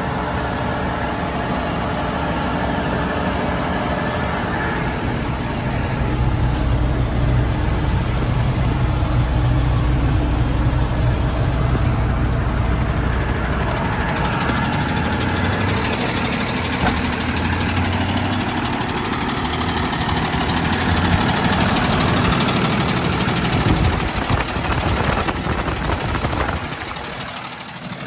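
Diesel engine of a Freightliner M2 truck idling steadily, dropping somewhat in level near the end.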